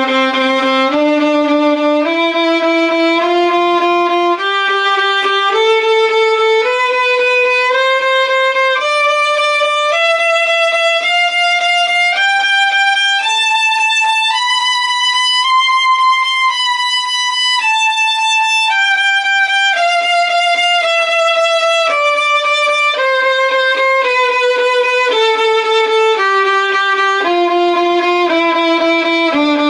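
Violin playing a slow two-octave C major scale in third position, starting on the G string, climbing note by note to high C and descending back to the starting C, about one note per second.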